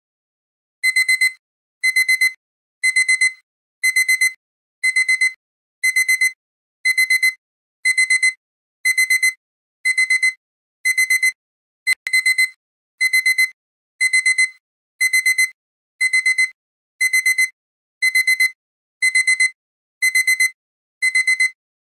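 Electronic timer alarm beeping as the countdown hits zero. A high-pitched beep comes in quick clusters that repeat about once a second.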